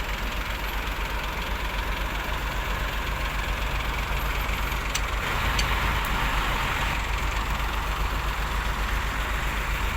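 Heavy diesel engine running steadily with a low, even pulsing. About halfway through it gets a little louder and two sharp clicks sound.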